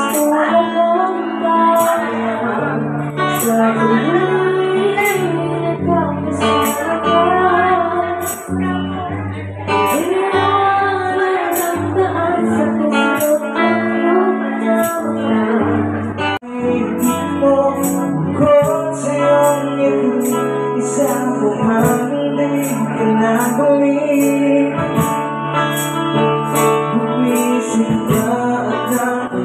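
Live acoustic set through a PA: a woman singing with acoustic guitar, over a steady high ticking percussion beat. The sound drops out briefly about sixteen seconds in.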